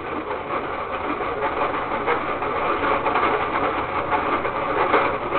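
DQ Blizzard Maker toy ice cream machine being churned, with a steady fast rattling and crunching of crushed ice inside it.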